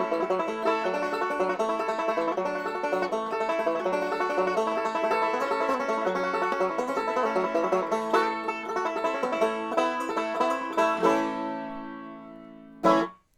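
Banjo playing a bluegrass breakdown with many quick plucked notes, ending about eleven seconds in on a chord that rings and fades away. Just before the end comes one short, loud noise.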